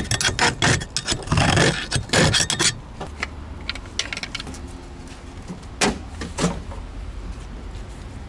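Metal clinking, rattling and scraping of a screwdriver and small chrome trim parts as the ashtray and armrest are worked off a VAZ-2101 door card, busiest in the first few seconds. Sparser ticks follow, with two sharp clicks about six seconds in.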